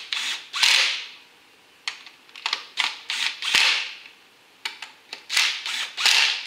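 Cordless electric impact driver hammering in several short bursts as it runs the ignition coil hold-down bolts down on a K24 engine, with short pauses between bolts.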